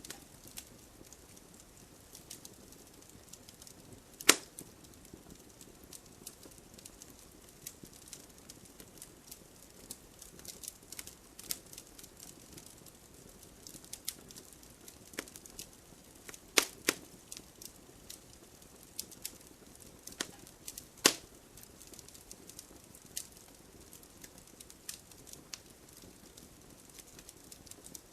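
Wood fire in a fireplace crackling: irregular sharp pops and snaps over a soft steady hiss, with a few loud pops, about four seconds in, around sixteen seconds and around twenty-one seconds.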